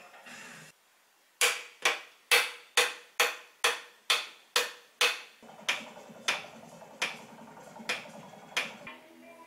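About fourteen hammer blows on the top of a moped's upright front fork leg, each a sharp knock with a short metallic ring. They come about two a second, then grow lighter and further apart after about five seconds in.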